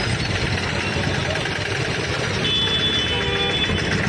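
Street traffic noise: vehicle engines idling and running close by, with a brief steady high tone about two and a half seconds in.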